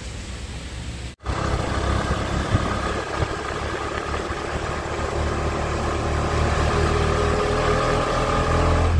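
Auto-rickshaw (tuk-tuk) engine running as it drives, heard from inside the open cab: a steady low rumble with an engine drone, growing a little louder towards the end. It starts suddenly about a second in, after a short stretch of quieter outdoor background.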